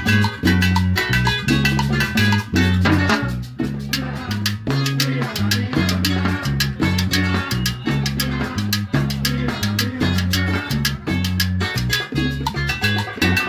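Salsa band playing live: a bass line stepping between held low notes under busy, steady percussion.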